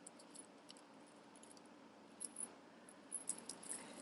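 Faint, sparse clinks of metal costume jewelry being handled, a few light ticks around two seconds in and again near the end.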